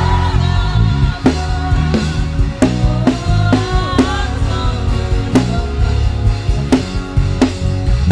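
Band music with a drum kit keeping a steady beat, a hit about every 0.7 seconds, over a bass line and sustained chords.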